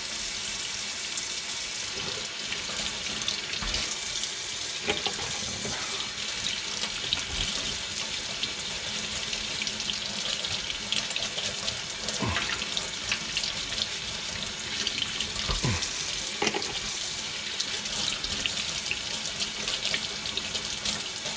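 Kitchen tap running steadily into a stainless steel sink while a small brush scrubs boiled fish bone under the stream. Twice, about halfway through and again a few seconds later, a short falling sound stands out over the water.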